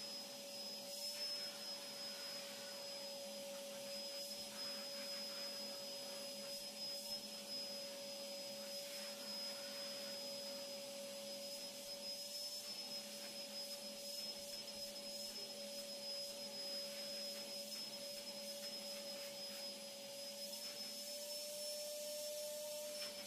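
Vacuum cleaner running steadily, a constant motor whine over the rush of air, its pitch lifting slightly near the end.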